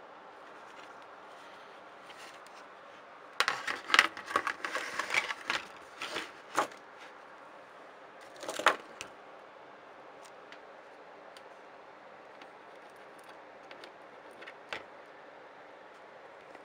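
Small tools being handled during soldering work: a rapid run of clicks and clatters for about three seconds, a shorter clatter a couple of seconds later and a few faint ticks near the end, over a steady low background hiss.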